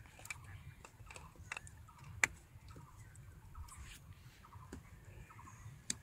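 Quiet riverbank ambience: scattered short bird chirps over a low wind rumble, with a few sharp clicks, the loudest about two seconds in and another near the end.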